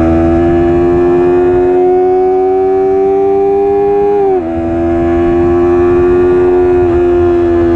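Stock Yamaha R3's parallel-twin engine pulling under acceleration, its note climbing steadily, then dropping sharply at a quick upshift from third to fourth gear about four and a half seconds in, and climbing again.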